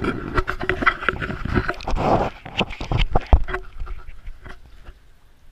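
Handling noise on an action camera's built-in microphone: a rapid run of knocks, rubs and clicks as the camera is gripped and moved, busiest for the first three and a half seconds and dying down after.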